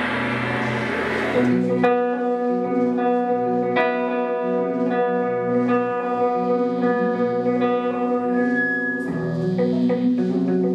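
Instrumental music: a noisy cymbal-like wash dies away about a second and a half in, then a plucked string instrument like a guitar plays held melodic notes over a low bass line.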